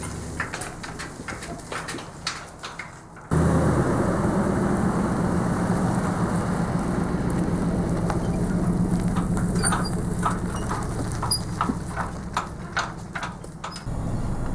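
A vehicle running at a steady engine hum that starts abruptly about three seconds in, with a run of sharp clicks and rattles near the end. Before it, quieter sound with scattered clicks.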